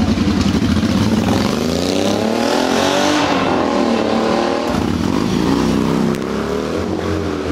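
Several cruiser motorcycle engines running as the bikes move slowly past in a line. The engine note rises and falls about two seconds in, and again about five seconds in.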